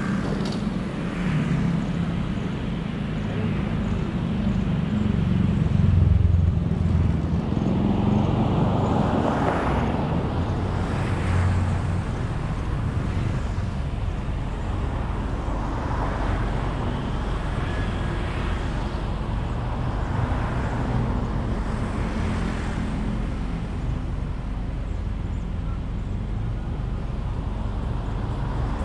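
Road and traffic noise while driving: a steady low rumble of a vehicle on the road, with other vehicles swelling past several times, the loudest about six seconds in.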